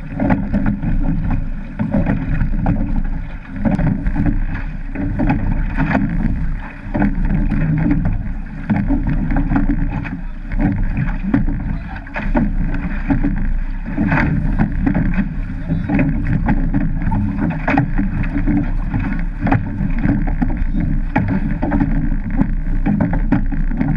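Surf boat being rowed: water rushing past the hull and a deep rumble on the bow-mounted camera, with a surge or knock about every two seconds in time with the oar strokes.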